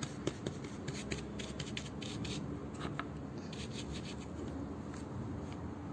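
Bristle paintbrush scrubbing thick block printing ink into the ridged cardboard of a collagraph printing plate: quick, irregular scratchy strokes, several a second.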